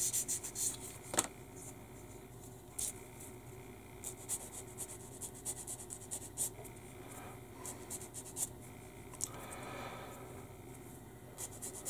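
Light sanding of a small plastic model aircraft wheel with a hand sanding stick: a run of quick rubbing strokes at the start, then scattered light scrapes and taps as the wheel and stick are handled.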